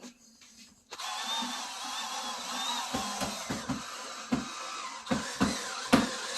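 Power drill driving a screw, starting suddenly about a second in and running steadily, with several dull knocks over the top.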